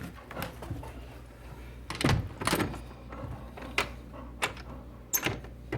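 A string of irregular knocks and thuds, the loudest about two seconds in, as a dog works at a newspaper box to pull the paper out.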